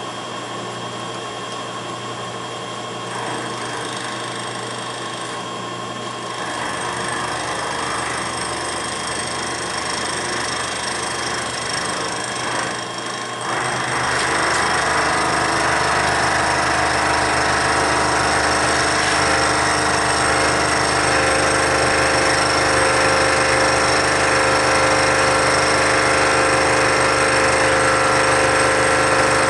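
Milling machine running with its end mill cutting a metal workpiece: a steady machine whine with a grinding cutting noise. The cut gets louder in steps and much louder about halfway through, as the cutter takes more metal.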